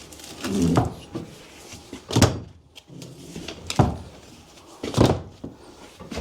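Heavy blows knocking apart an old metal appliance by hand instead of cutting it: three loud strikes about two, four and five seconds in, with lighter knocks and a short metallic scrape between them.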